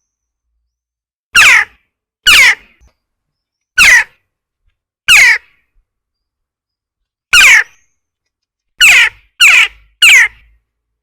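Western jackdaw calling: eight short calls, each falling in pitch, at uneven gaps, the last three in quicker succession.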